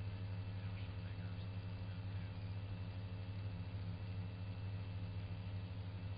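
Helicopter engine and rotor droning steadily: a constant low hum with even overtones that does not change.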